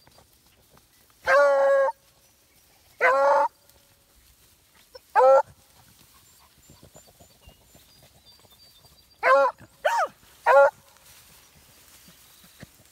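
Rabbit-running hound giving voice on a rabbit's scent: six bays, the first two drawn out, then one short call and a quick run of three chops.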